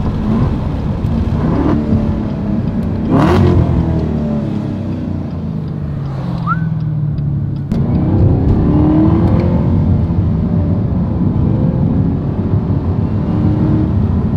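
Supercharged 6.2-litre V8 of a 2018 Chevrolet Camaro ZL1 with its secondary catalytic converters deleted, pulling hard with the exhaust note rising. The revs fall away around five to seven seconds in with a few sharp crackles, then the engine comes back on the throttle suddenly and louder about eight seconds in.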